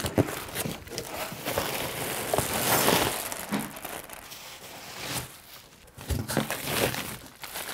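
Packaging crinkling and rustling as a taped parcel is unpacked by hand, with some tearing and a few short knocks.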